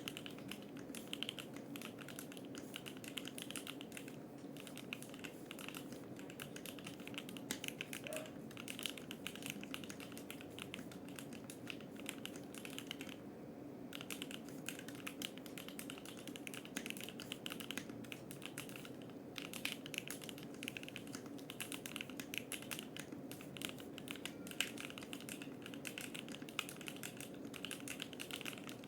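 Typing on a Monsgeek M1 mechanical keyboard with Gateron Oil King linear switches on a polycarbonate plate: a steady stream of fast keystroke clacks, with a brief pause about 13 seconds in.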